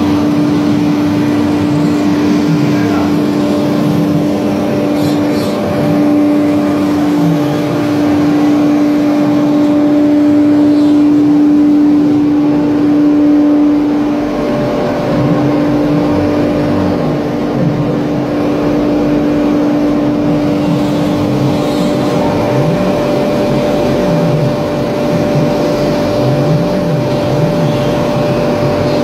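CNC router running: the HSD electric spindle holds one steady tone while the axis drive motors rise and fall in pitch again and again as the gantry speeds up and slows down.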